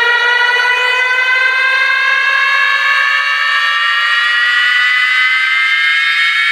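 A homemade Bluetooth speaker playing a loud, steady test tone full of overtones that rises slowly and evenly in pitch, like a siren sweep.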